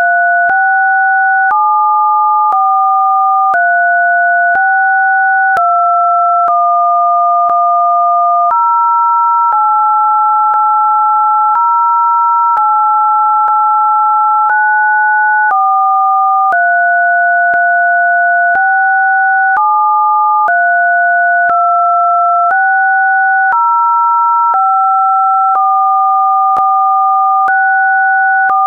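Two pure electronic sine tones sounding together, a lower and a higher one, both jumping to new pitches every one to a few seconds. There is a small click at each jump.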